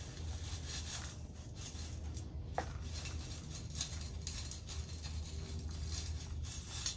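Gritty rustling and scraping of bonsai soil being scooped and worked by hand, with a brief falling squeak about two and a half seconds in. A steady low hum runs underneath.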